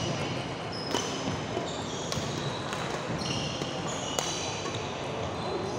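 Badminton rally: sharp racket strikes on a shuttlecock, one every second or so, with shoes squeaking briefly on the wooden court floor, over the steady background noise of a large sports hall.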